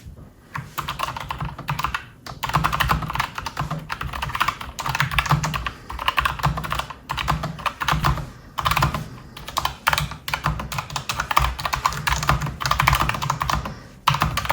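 Fast typing on a Logitech G915 X low-profile mechanical keyboard, key after key in quick runs with short pauses: first on linear red switches, then, about nine seconds in, on tactile brown switches.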